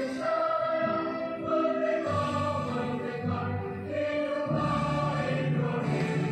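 Music with choir-like singing in long held notes over a low bass line.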